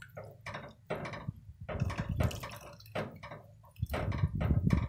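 Soup broth sloshing and plopping in a pot as a silicone spatula stirs it and an egg-yolk and lemon mixture is poured in, in a run of irregular small splashes.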